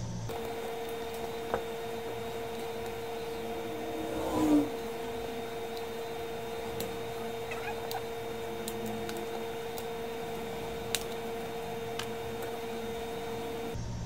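Steady, even hum throughout, with a few sharp clicks as a metal pry tool works open the plastic case of a VTech baby-monitor unit, and one short louder burst about four and a half seconds in.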